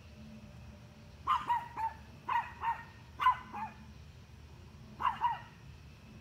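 A dog barking at a deer in short bunches of two or three, about nine barks in all, starting about a second in.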